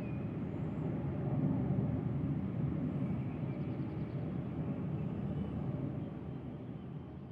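Steady low rumble of distant city traffic, with a few faint high chirps over it, fading out near the end.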